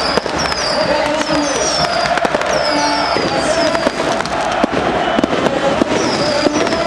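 Firecrackers going off in a rapid, irregular string of sharp cracks amid a football crowd burning flares. Repeated high whistles slide down in pitch over the crowd's sustained chanting.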